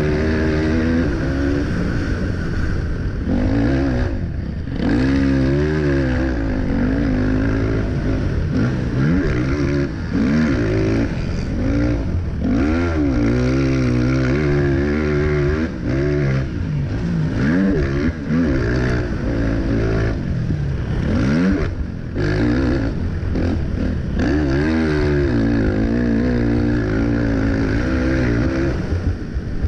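Race quad's engine heard on board at full race pace, revving hard and dropping off again and again as the throttle is opened and closed through the turns, with a few short dips where the throttle is chopped.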